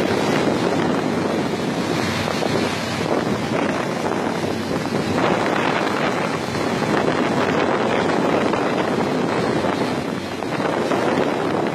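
Steady wind buffeting the microphone, with water rushing along the hull of a boat under way.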